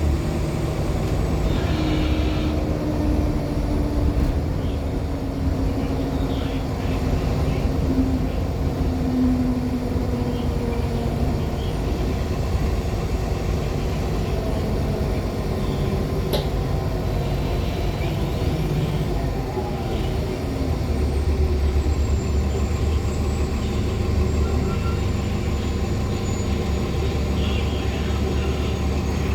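Interior of a 2014 Nova Bus LFS articulated hybrid bus (Cummins ISL9 diesel with Allison H50 EP hybrid drive) under way: a steady drive noise with a whine that falls in pitch over about the first ten seconds. A single sharp click comes about halfway through, and a deeper engine drone strengthens about two-thirds of the way in, with a faint high thin whistle above it.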